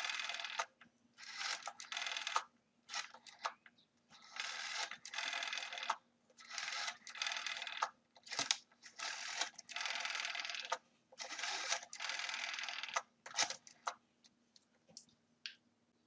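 Rotary dial of a vintage desk telephone being dialled. The dial winds off and whirs back again and again, each return lasting from a fraction of a second to over a second, with short pauses between digits, as a phone number is dialled.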